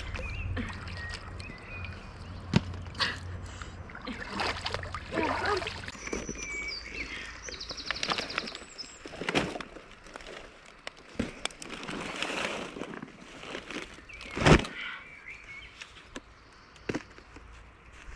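Water splashing and sloshing around a sinking homemade raft of cardboard and plastic bottles, followed by the wet raft being handled and dragged: irregular crinkles and knocks of plastic bottles and cardboard, with one sharp knock about 14 seconds in.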